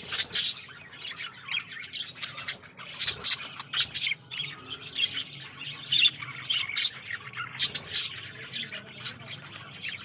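A group of white cockatiels squawking and chirping, with many short, sharp calls coming several times a second.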